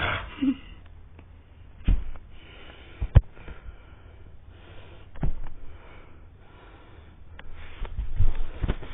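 Yellow Labrador retriever sniffing in short, separate bursts, with a few soft bumps.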